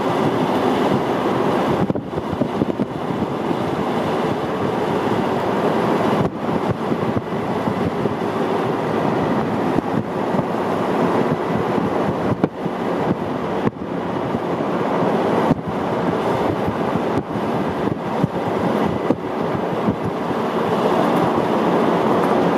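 Steady rushing tyre and wind noise of a car driving at speed on an asphalt road, heard from inside the car, with a few brief dips.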